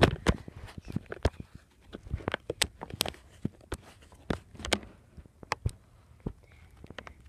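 Irregular sharp clicks and taps close to the microphone, about two or three a second.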